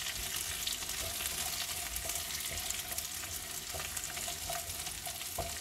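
Chunks of red onion sizzling in hot oil in a nonstick wok, stirred and turned with a slotted spatula.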